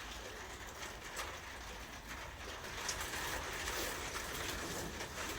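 Steady hiss of heavy rain outside, with a few faint clicks of small metal parts being handled.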